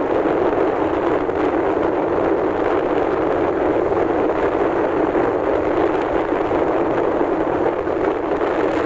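Steady rushing noise of a vehicle in motion, with wind on the microphone.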